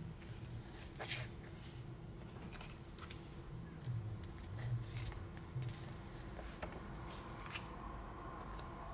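Sheets of rub-on transfer paper being handled and leafed through: soft paper rustles and light flicks at irregular moments, with a few dull low bumps against the table around the middle.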